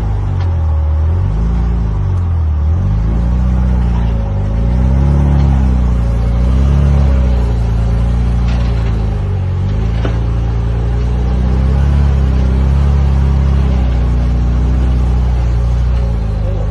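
Off-road vehicle's engine revving hard in repeated surges that rise and fall in pitch, then holding a steadier, heavy note under load, with a few faint knocks.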